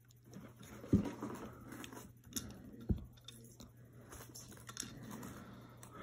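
Plastic LEGO pieces clicking and rattling as they are handled and sorted, with two dull thumps, the first about a second in and the second about three seconds in.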